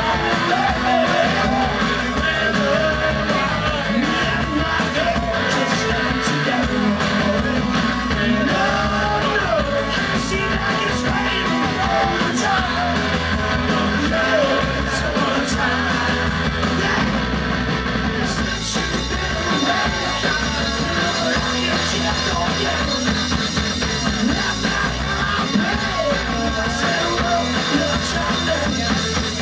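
Live rock band playing a song with drums, guitars and a lead singer.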